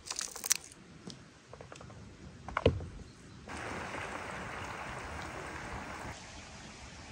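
Pomegranate arils being picked out of the fruit by hand onto a wooden board: crisp clicks and crackles, with one thump about two and a half seconds in. At about three and a half seconds a large pan of quince pieces boiling hard takes over, a steady bubbling hiss for a few seconds.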